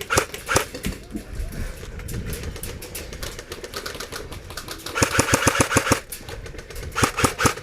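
Airsoft guns firing: a few single shots at the start, then a rapid burst of about a dozen shots lasting about a second around five seconds in, and a shorter burst near the end.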